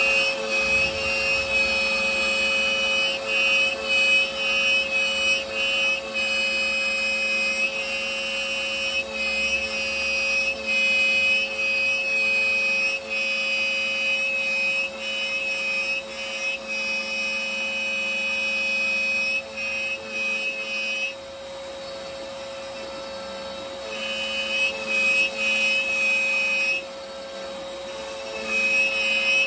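CNC router spindle cutting a maze pocket into a wood board, the cutting noise coming and going in short runs as the bit moves back and forth. The cutting drops away for about three seconds past the two-thirds mark, then resumes in short runs.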